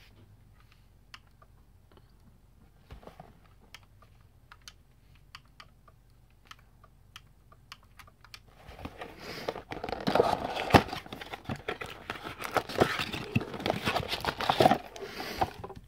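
Cardboard trading-card box handled in the hands: faint scattered taps and clicks at first, then from about eight seconds in, loud crackling and tearing as the box is torn open.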